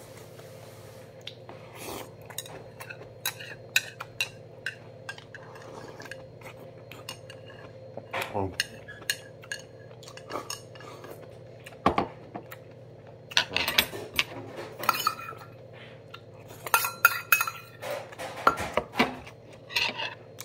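Metal chopsticks clicking and scraping against a small side dish, in scattered taps that come in quick clusters in the second half, over a steady low hum.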